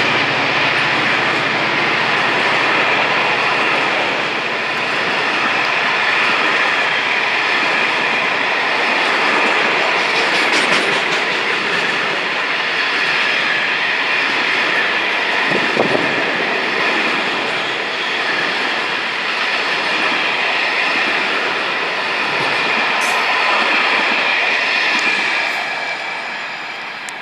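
Container freight train's wagons passing at speed, wheels clattering on the rails with a steady rushing noise. The noise fades in the last couple of seconds as the end of the train goes by.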